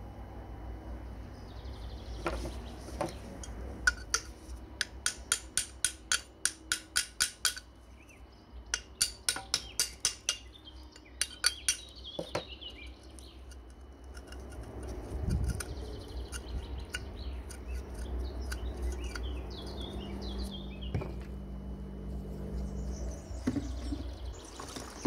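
Rusty cast-iron stove door clinking as it is handled: two runs of quick, evenly spaced metal clicks, about three a second.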